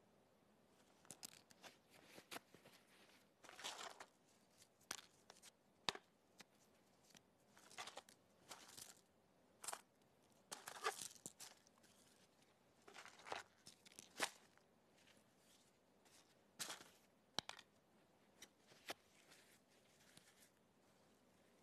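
Sheets of paper torn by hand into small scraps, with quick, irregular rips and some crinkling of the pieces.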